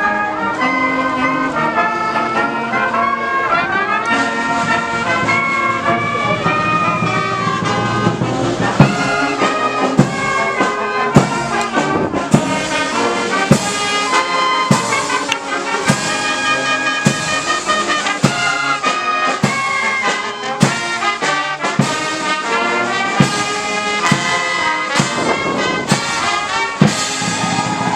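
Brass band playing a tune led by trumpets and trombones. A drum beat comes in about nine seconds in, roughly once a second.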